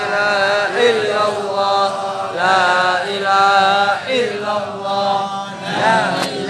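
A solo voice chanting an Islamic devotional melody (shalawat), holding long notes with winding ornaments between short breaths.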